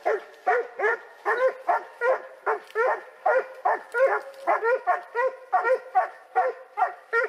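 Hunting dog barking without pause in short, evenly paced barks, about three a second.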